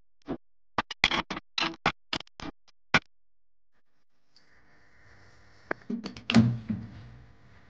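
A quick run of short plucked notes, then kitchen handling sounds: a few clicks and a louder knock about six seconds in, as a moka pot's lid is shut and an air fryer is pressed.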